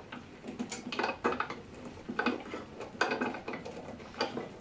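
Pen press being closed to push a metal transition coupling into a pen body tube: a few light metallic clicks and clinks, roughly a second apart.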